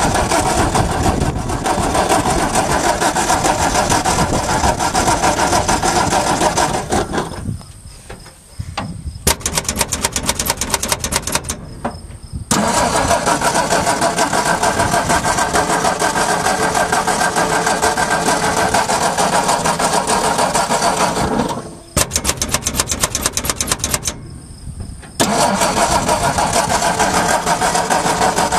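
1958 Ford F100 pickup's engine being cranked over by its starter in three long bursts, with short pauses and stretches of fast clicking between them. It does not catch and run: the truck is short of fuel.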